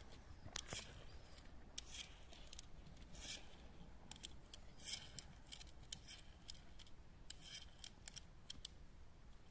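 Porridge-and-groundbait mix being stirred: a run of short, irregular crisp scraping sounds.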